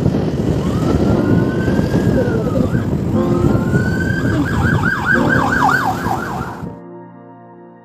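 Electronic siren giving two rising wails, then switching to a fast warbling yelp, over the rumble of road and wind noise from a moving scooter. The road sound cuts off suddenly about seven seconds in, leaving soft piano music.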